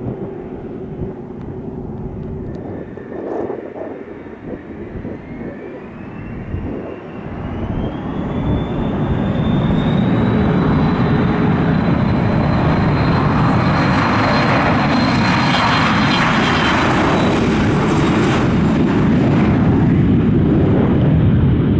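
Gulfstream G200 business jet's twin Pratt & Whitney Canada PW306A turbofans spooling up to takeoff power: a whine rises for several seconds about a quarter of the way in, then the engines run loud and steady at full thrust as the jet begins its takeoff roll.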